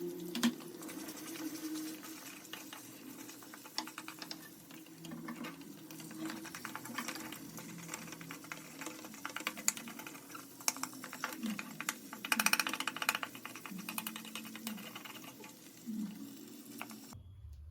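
Rapid light clicking and clattering of kitchen utensils, densest about two-thirds of the way through, over soft background music that cuts off abruptly near the end.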